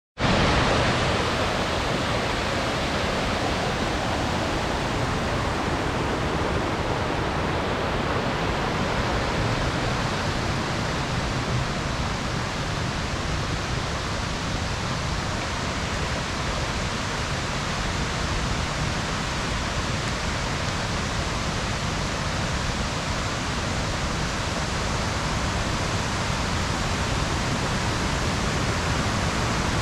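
Waterfall on a mountain stream, water pouring down in a steady, unbroken rush.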